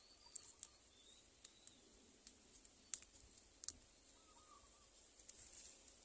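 Near silence with scattered faint, sharp clicks, the loudest about halfway through, and a few faint high chirps.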